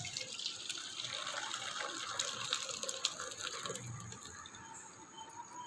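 Boiled ground sweet corn liquid being poured through a strainer into a vessel: a steady pour of liquid that starts suddenly and tapers off about four and a half seconds in.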